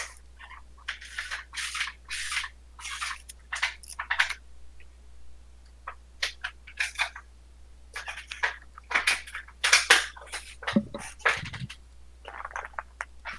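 A deck of sleeved Magic: The Gathering cards being shuffled by hand, the halves pushed together again and again: a run of short, irregular papery swishes and clacks. It gets busier about eight seconds in, with a couple of duller knocks near eleven seconds.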